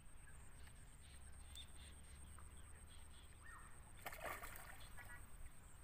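A brief splash at the water surface about four seconds in, a few quick sharp splashing sounds over about half a second, above a faint low background rumble.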